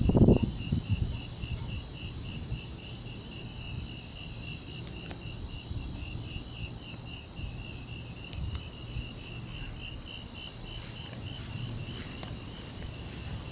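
Crickets chirping steadily, a high pulsing trill of about three chirps a second, over a low background rumble, with a brief low gust on the microphone at the start.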